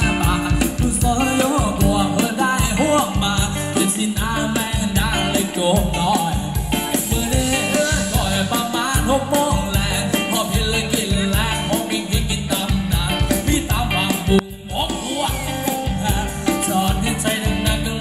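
Upbeat Thai ramwong dance music from a live band, with a steady heavy beat and singing over it. The music dips briefly about three-quarters of the way through.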